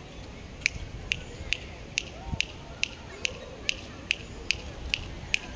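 A short, sharp click repeated at a very even pace, about two and a half times a second, starting about half a second in.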